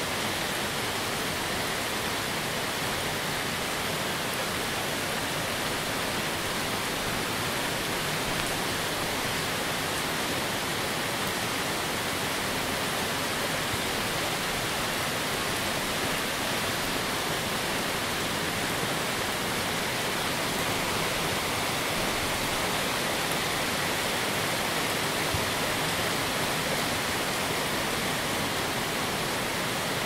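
Heavy rain falling steadily, a dense even hiss with no pauses.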